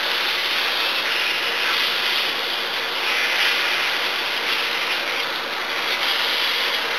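Chopped vegetables sizzling in a pan as they are stirred with a spatula: a steady hiss.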